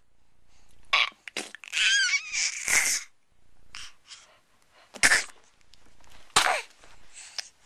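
A baby's breathy vocal noises: a handful of short puffs and squeals, one a high wavering squeal about two seconds in and another sliding down in pitch near the end.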